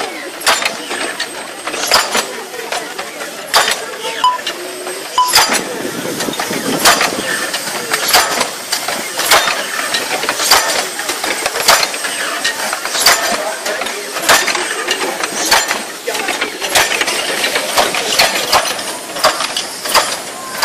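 Steam-driven ratchet wheel of a Cugnot fardier replica clicking as the carriage moves: a sharp metallic clack about every second and a quarter, with lighter clicks in between.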